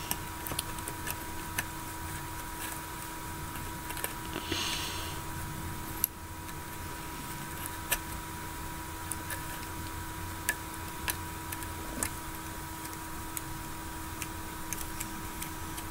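Scattered small clicks and taps of a plastic rubber-band loom and its hook being handled as bands are moved onto the pegs, with a brief rustle about four seconds in, over a faint steady electrical hum.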